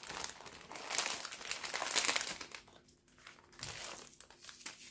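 Thin polyethylene wrapping sleeve crinkling and rustling as it is pulled off a potted kalanchoe by hand. It is busiest in the first two and a half seconds, then settles to fainter, scattered rustles.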